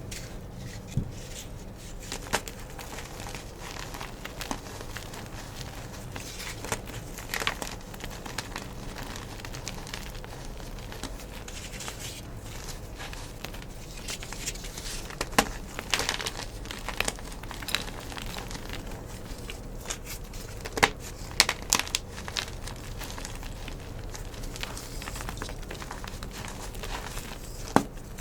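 Thick blocks of green-dyed gym chalk being crushed, crumbling with a soft crackle and now and then a sharper crunch or snap.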